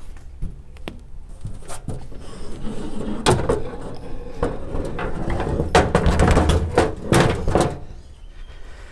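Knocks, bumps and clatter of the cargo enclosure's hard raised lid being handled and set onto its pivot points. A few light taps come first, then a busy run of knocks fills the middle and second half before it settles near the end.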